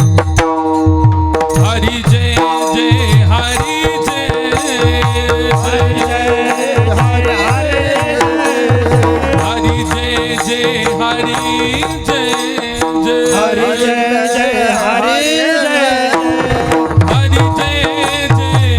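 Marathi devotional kirtan singing: a solo voice sings an ornamented melodic line over a steady harmonium drone. A hand drum plays repeated strokes whose bass pitch slides downward.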